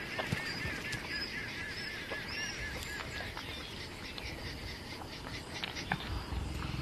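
A bird calling a rapid series of short, repeated honking notes, about five a second, that stops about three seconds in, over open-country ambience with scattered clicks and chirps; a low rumble comes in near the end.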